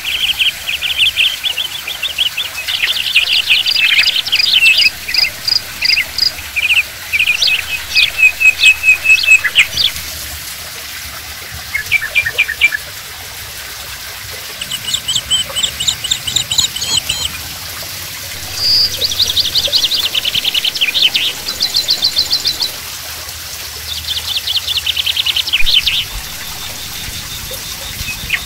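Small birds chirping in repeated fast trills of short high notes, in bursts of a second or two with short gaps, over a steady hiss of water trickling down a cement waterfall into its pool.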